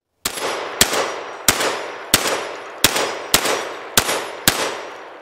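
Remington V3 Tactical 12-gauge gas-operated semi-automatic shotgun fired eight times in quick succession, about a shot every two-thirds of a second. Each blast is followed by a long echoing tail that fades out after the last shot.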